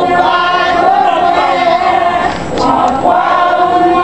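A congregation, mostly women, singing a sacred chant in Haitian Creole together without accompaniment, breaking briefly between lines about halfway through.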